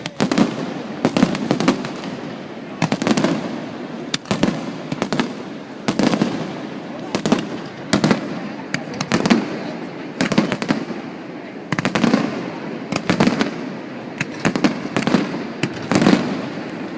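Fireworks display: bangs going off in quick clusters throughout, each followed by a rolling echo.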